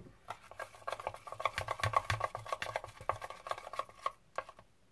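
Stirring stick scraping through thick glue slime mixture in a plastic tub, a quick run of stirring strokes that stops shortly before the end. This is the stage of mixing bicarbonate of soda into the glue before the activator goes in.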